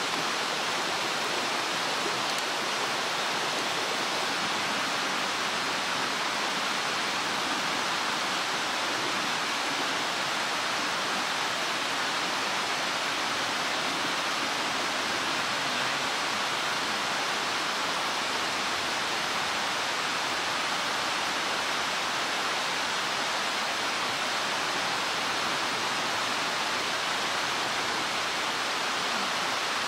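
Steady, unbroken rush of a mountain stream.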